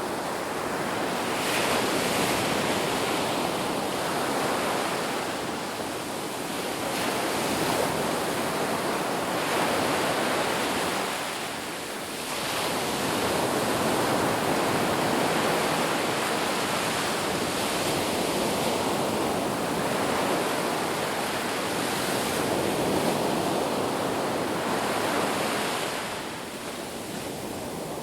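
Sea waves breaking and washing on a shore, a continuous rush of surf that swells and eases, dipping briefly about twelve seconds in and near the end.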